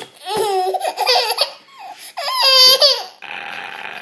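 Baby making high-pitched squealing, laughing sounds in two runs of sliding calls.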